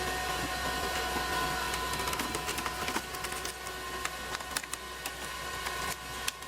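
A machine runs with a steady high whine while wood cracks and splinters in many short, sharp snaps.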